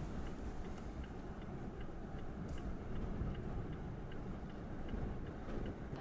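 Steady low rumble of blizzard wind, with a faint, even ticking about two or three times a second running through it.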